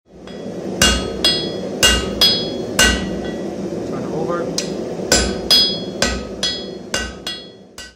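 Hand hammer striking a red-hot steel bar on an anvil, about a dozen ringing blows, many in quick pairs, over a steady low rush.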